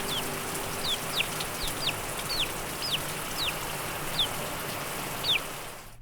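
Bird chirping: a dozen or so short, high calls, each sliding downward in pitch, repeated at uneven intervals over a steady background hiss.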